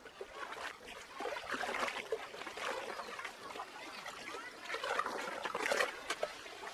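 Water being poured through a cloth filter, trickling and splashing into the basin below as drinking water is strained.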